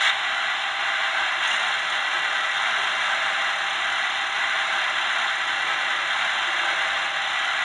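Sound decoder of an Electrotren H0 model of a RENFE series 269 electric locomotive, standing still and playing a steady mechanical hiss through its small speaker.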